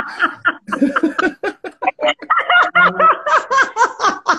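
Two people laughing hard together: a quick run of loud 'ha-ha' bursts, several a second, strongest in the second half.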